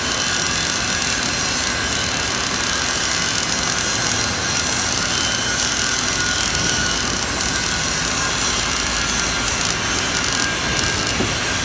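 GMAW (MIG) welding arc running continuously, a steady dense crackling hiss.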